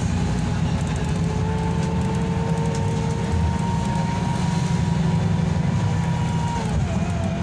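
Interior sound of a 2018 Higer diesel city bus with a Voith automatic gearbox, driving along: a steady, dense engine and road rumble heard from inside the passenger cabin. Over it a thin high whine holds steady, then drops in pitch near the end.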